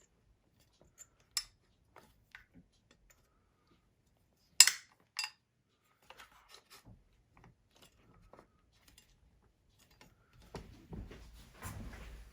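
Sharp metallic clicks and clinks of small metal parts and tools being handled, the loudest a little past four and a half seconds in with a second just after. Near the end, a rustling of handling begins.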